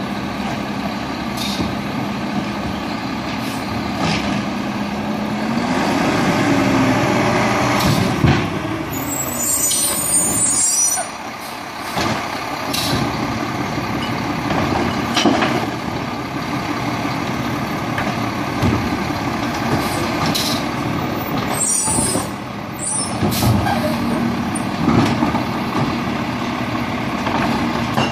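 Mack LR garbage truck working an automated side-loader: the diesel engine runs and revs up about five seconds in to drive the hydraulic arm as it lifts and tips wheeled carts into the hopper, with knocks and bangs from the carts and arm and a couple of air hisses.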